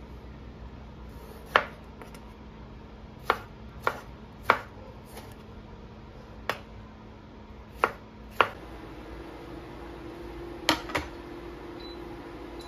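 Chef's knife chopping cherry tomatoes on a bamboo cutting board: seven sharp, unevenly spaced knocks of the blade hitting the board. Then two quick knocks close together near the end, with a low steady hum underneath.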